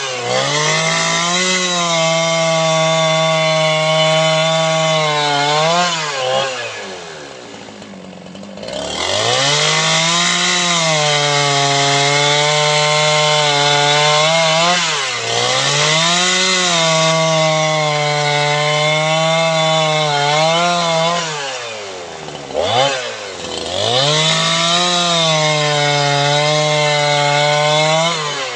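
Two-stroke chainsaw at full throttle ripping a red meranti log lengthwise. The engine eases off several times and drops nearly to idle twice, about a quarter of the way in and again about three quarters through, before revving back up into the cut.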